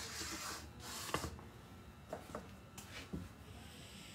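Quiet handling noise: a short hiss at the start, then a few scattered light knocks and clicks.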